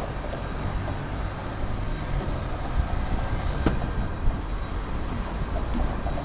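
Steady low rumble of city traffic, with short high chirps recurring every second or so above it and a single sharp click about three and a half seconds in.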